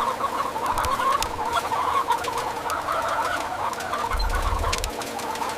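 A large flock of chickens clucking together in a dense, continuous din, over a steady low hum.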